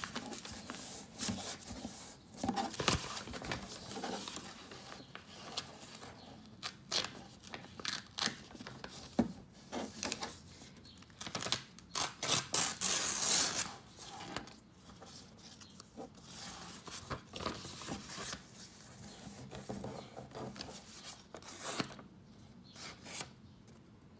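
A sheet of paper being handled, folded and creased, with crisp rustles, crinkles and rubbing along the folds. There is a longer, louder rasping stretch about twelve seconds in.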